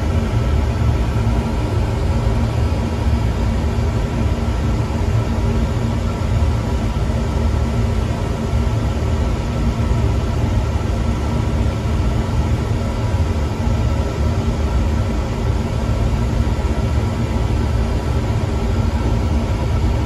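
Slant/Fin oil-fired boiler running: the oil burner's steady, loud low rumble, with a faint even hum of tones over it.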